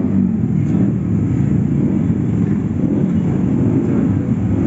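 Several motorcycle engines running together, a steady loud rumble whose pitch rises and falls as the bikes rev.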